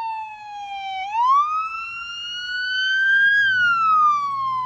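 Police car siren in a slow wail: the tone falls, rises over about two seconds, then starts falling again near the end. A low hum joins underneath in the last second or so.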